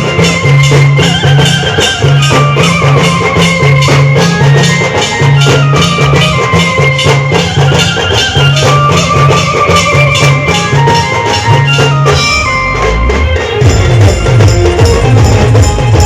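Band music: a melody over fast, steady drumming and shaker, with a repeating bass figure. About twelve seconds in, the bass part changes to a deeper, busier pattern.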